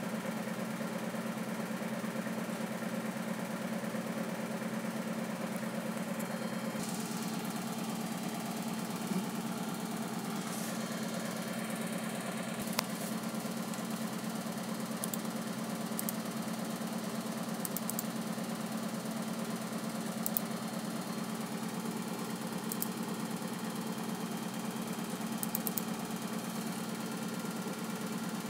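A fan running with a steady hum, strongest low down with a fast even pulse in it; its tone shifts slightly about seven seconds in. A few faint clicks come in the second half.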